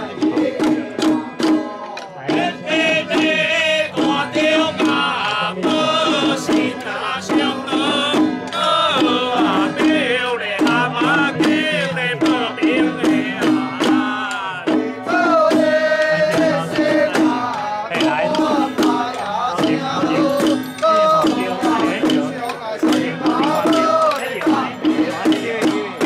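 Taiwanese folk-religion ritual chanting, sung in wavering voices over a continual fast beat of hand-held percussion.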